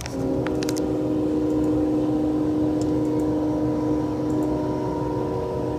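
Union Pacific freight locomotive's air horn sounding one long, steady chord, over the low rumble of the passing train. A few sharp clicks come about half a second in.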